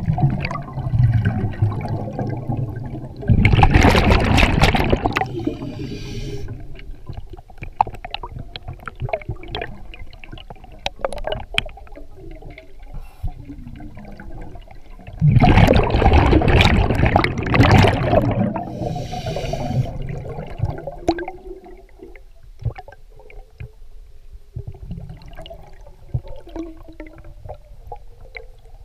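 Scuba diver's exhaled breath bubbling out of the regulator underwater: two long, loud rushes of bubbles, a few seconds in and again about halfway through, with small clicks and gurgles between.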